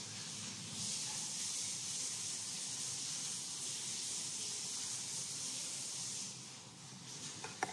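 Steady high-pitched hiss that dips briefly near the end, with a single sharp click just before the end.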